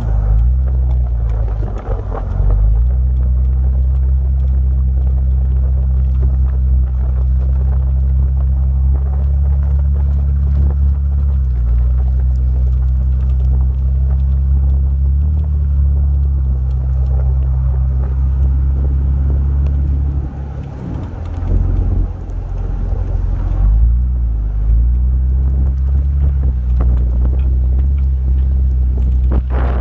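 Jeep engine and exhaust running with a steady low drone while it crawls through snow. The pitch drops about eleven seconds in, rises again about fifteen seconds in, and wavers for a few seconds past the twenty-second mark as the revs change.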